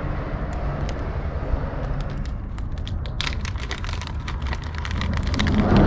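Plastic bait bag of frozen sand fleas crinkling and crackling in short sharp clicks as cold hands struggle to tear it open, over a steady low rumble.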